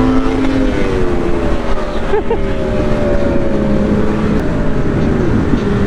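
Motorcycle engine running with wind rushing over the microphone; its note falls steadily over the first few seconds as the bike slows off the throttle.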